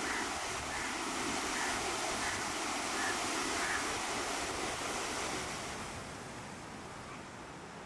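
Ocean surf: a steady rush of waves on the shore, dropping somewhat in level about six seconds in.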